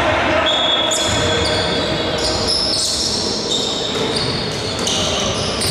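Basketball being dribbled on a wooden gym court during live play, with players' voices, in a large sports hall.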